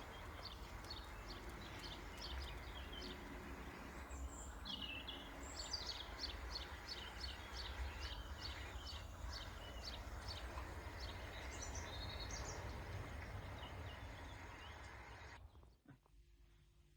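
Small songbird singing a run of quick high chirps, about two or three a second, over a faint steady low rumble of outdoor ambience. The ambience cuts off abruptly near the end.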